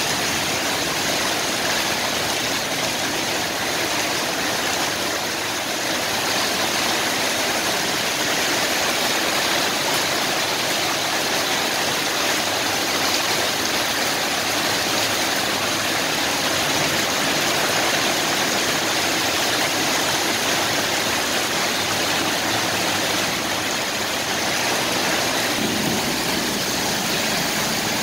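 Heavy downpour, a steady dense hiss of rain, with motorbikes passing on the waterlogged road and tyres swishing through standing water. A car goes by near the end.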